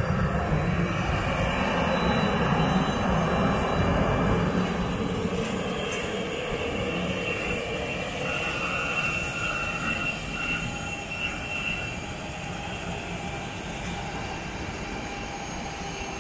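Jet airliner cabin noise: the steady rumble and rush of the engines and airflow heard from inside the cabin, a little louder in the first few seconds and then easing slightly.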